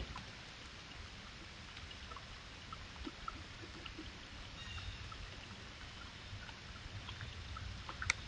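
Faint outdoor ambience picked up by a trail camera's microphone: a steady low hiss and rumble with scattered small ticks and chirps, and one sharper click near the end.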